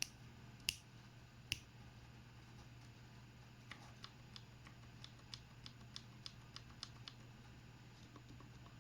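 Keystrokes on an RK98 mechanical keyboard with Outemu low-profile brown switches: three sharp clicks in the first second and a half, then a quicker run of softer key presses, then fainter ones near the end. The switches have been lubed unevenly, with unequal amounts of lube from switch to switch.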